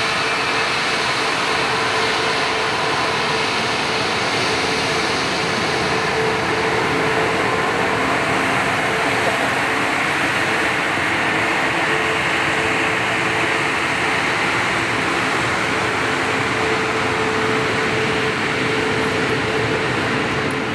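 Bombardier CS300 airliner's Pratt & Whitney PW1500G geared turbofan engines running at taxi power as the jet rolls past close by: a steady rushing jet noise with a constant whine held underneath.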